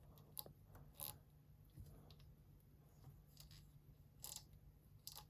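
Near silence with a faint low hum and a few scattered faint clicks and rubs from hands working on the printer.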